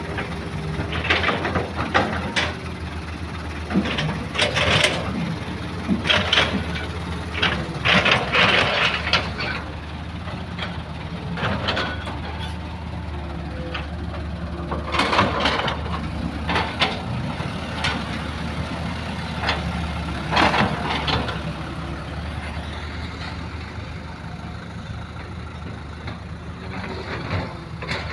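Diesel engines of a Hitachi excavator and dump trucks running steadily, with repeated short crunching bursts as bucketloads of soil and rock drop into a dump truck's bed.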